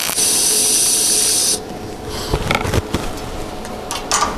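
TIG welding arc on an aluminium bumper: a steady buzzing hiss that steps up louder just after the start and cuts off about a second and a half in. A few knocks and clatter follow.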